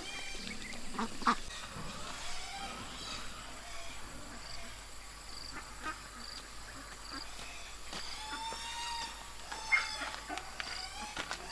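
Birds calling: short chirps repeated throughout, with a few longer calls about eight seconds in and near the end.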